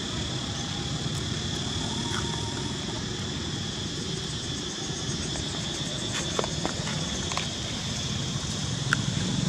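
Steady high insect buzzing, over a low background rumble, with a few faint clicks in the second half and a brief squeak near the end.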